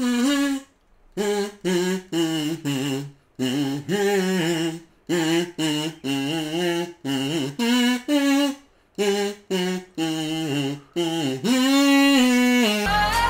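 A kazoo playing a bouncy tune of short separate notes, ending in one longer held note.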